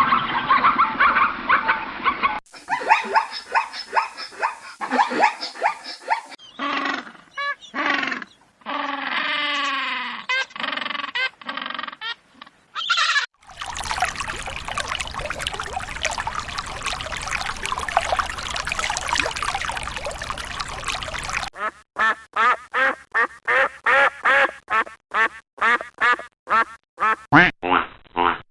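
A series of different animal calls cut one after another, about six short clips, including a longer noisy stretch in the middle and a run of short, evenly repeated calls about three a second near the end.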